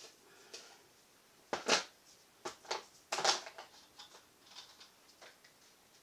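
Handling noise: a handful of short rustles and light clicks, bunched a couple of seconds in, as a gloved hand and a sweater sleeve reach over the canvas and pick up a paint cup.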